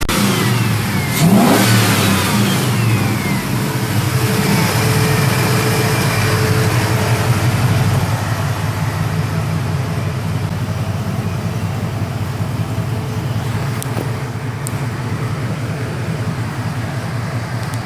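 Chevrolet 5.3 LS V8 in a 1965 Chevy Biscayne wagon running, with the pitch swinging up and down about a second in, then settling into a steady drone.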